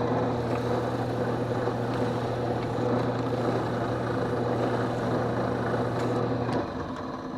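Drill press motor running steadily, spinning a wooden workpiece that is being sanded, with a low hum under a rasping hiss. The motor is switched off near the end and the sound winds down.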